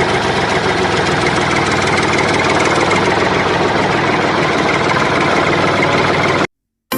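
Small engine of a miniature model tractor running steadily at idle with a fast, even beat. It cuts off suddenly near the end.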